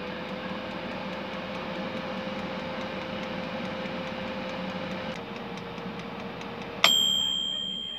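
Britânia Air Fryer Pro running with a steady fan hum, working again on a new thermal fuse. About seven seconds in its mechanical timer runs out: one bright bell ding that rings on and slowly fades, as the fan stops.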